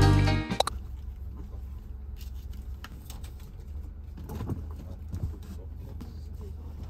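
Luggage being packed into an open car boot: scattered light knocks and rustling over a low steady hum. A strummed guitar tune fades out in the first half second.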